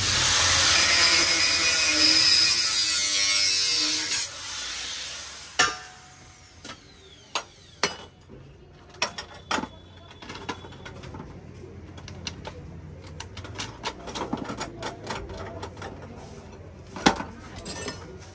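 Tool work on a gas stove: a harsh, steady rasping noise for about four seconds that fades out, then scattered light clicks and knocks of metal stove parts being handled.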